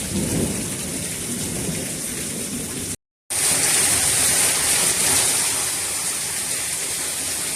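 Heavy rain pouring down steadily, with a low rumble of thunder near the start. The sound cuts out for a moment about three seconds in, then the rain comes back louder and hissier.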